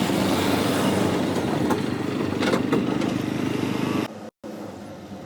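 Diesel engine of a JCB 3DX backhoe loader running steadily under work. The sound cuts out briefly about four seconds in and comes back quieter.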